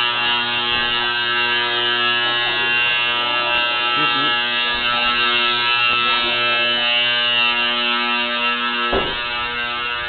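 Fire alarm horn sounding continuously, not coded, as a steady harsh electric buzz. A single knock comes about nine seconds in.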